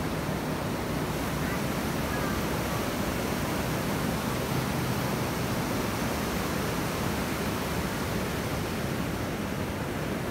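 Steady rush of ocean surf breaking along the beach.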